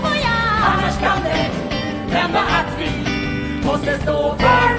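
Stage song: singing voices over instrumental accompaniment, with a held sung note near the end.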